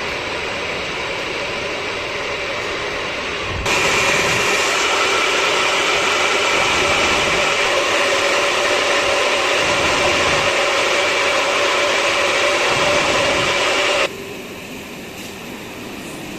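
CNC Swiss-type automatic lathe running while it machines small pins: a steady machine drone with high whine tones over it. It gets louder a few seconds in and drops back abruptly near the end.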